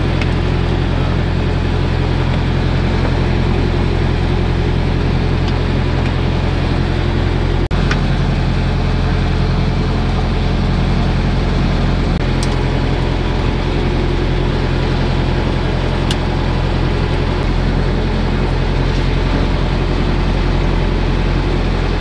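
Boat's inboard engine running steadily, heard from inside the cabin as a constant low hum, with one short knock about eight seconds in.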